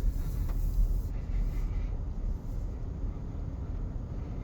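Low, unsteady rumble of wind buffeting an outdoor microphone, with no voice over it.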